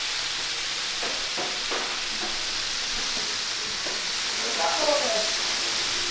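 Chicken pieces deep-frying in hot oil in a large aluminium pot: a steady sizzle with scattered pops and crackles. A brief pitched sound rises over it about five seconds in.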